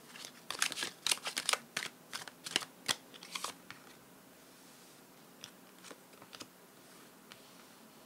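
Tarot cards being handled, shuffled and drawn: a quick run of crisp card snaps and slides over the first few seconds, then a few light taps.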